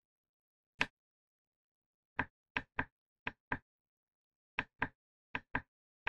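Sharp clicks of the Dyson V12 Detect Slim's button below the LCD screen being pressed to step through the menu: one click about a second in, then nine more in quick succession, mostly in pairs.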